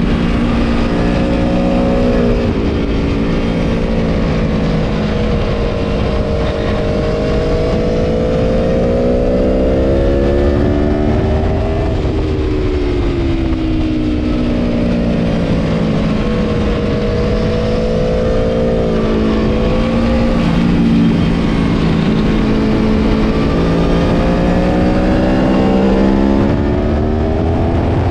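Aprilia Tuono V4 Factory's V4 engine at racing speed. The revs climb and drop repeatedly, with short steps down in pitch at the gear changes and longer falls as it slows for corners.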